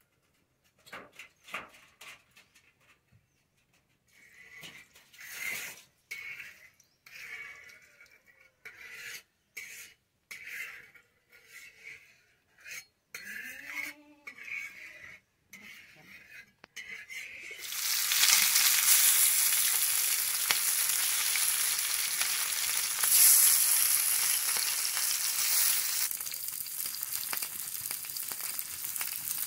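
A metal spatula scrapes and spreads oil in a black pan in short separate strokes. A little past halfway a loud, steady sizzle starts as turmeric-coated pieces of silver fish fry in the hot oil, easing slightly near the end.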